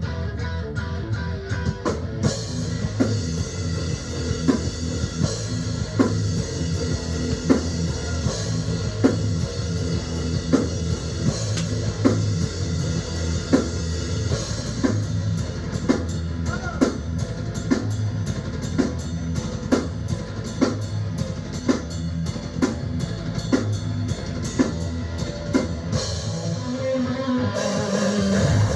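Live rock band playing: electric guitar and bass over a drum kit keeping a steady beat, with regular sharp drum hits.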